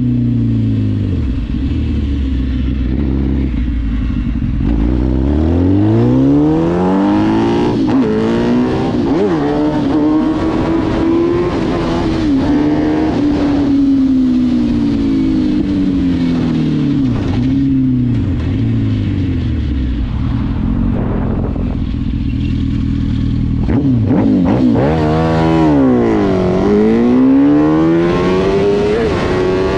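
Yamaha Raptor quad's swapped-in Yamaha R1 RN19 inline-four engine pulling hard under acceleration, its pitch climbing and falling back several times as it runs up through the gears. Near the end it drops steeply as the quad slows, then revs up again.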